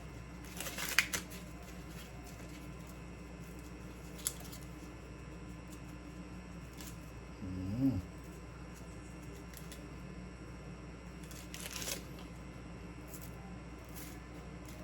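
Dry corn husks rustling and crackling as they are handled: short crinkly bursts about a second in and again near twelve seconds, with a single tick near four seconds, over a faint steady low hum. A brief low voice-like sound comes about eight seconds in.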